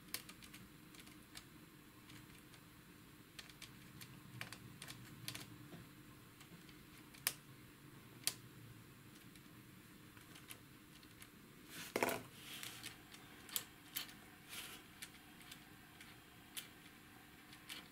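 Sparse light clicks and taps of handling around an opened aircraft altimeter's metal gear mechanism. A louder bunch of knocks comes about twelve seconds in, followed by a few more clicks.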